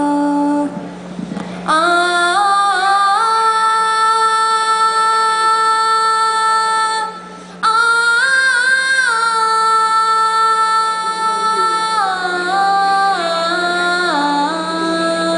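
A woman singing solo into a microphone, holding long notes that step up and down in pitch, with short pauses for breath about a second in and again about halfway through. A steady low hum sounds beneath the voice.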